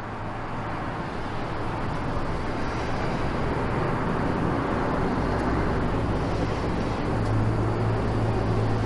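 Steady background noise, a broad hiss with a low hum underneath that grows a little louder near the end.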